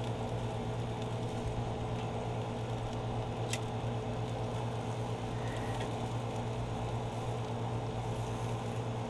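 Burgers and bratwurst sizzling on a charcoal grill under a steady low hum, with a single short click about three and a half seconds in.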